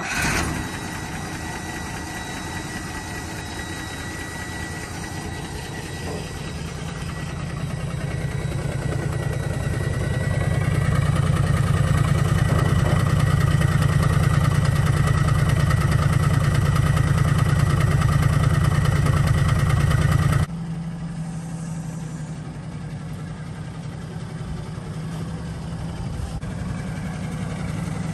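Toyota Land Cruiser FJ45's engine catching right at the start, then running steadily. It grows louder from about six seconds in, stays loud, drops off suddenly about twenty seconds in, and settles back to a steady idle.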